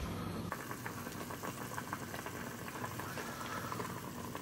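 Water bubbling in a glass-lidded pan on a gas stove, steaming foil-wrapped tamales: a steady, dense crackle of small bubbles that starts about half a second in.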